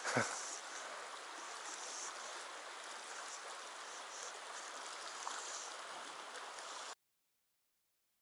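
Shallow mountain stream running over rocks, a steady rush of water that cuts off abruptly about seven seconds in.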